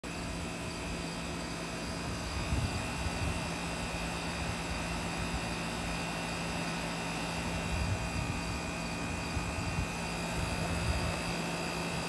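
Central air conditioner's outdoor condenser unit running: the compressor and the top-mounted condenser fan make a steady low hum with a thin, constant high tone over it.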